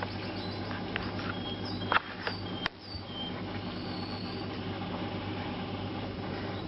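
A steady low hum with a noisy haze runs throughout. Several sharp clicks sound in the first three seconds, the loudest about two seconds in, along with a few short, faint, high squeaks.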